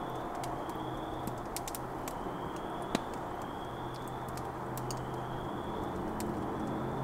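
Campfire crackling with irregular sharp pops over a steady low hum of distant road traffic. A bird's high, slightly rising call repeats about once a second throughout.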